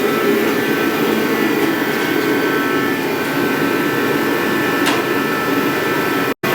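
Steady mechanical hum with faint high tones, dropping out abruptly near the end.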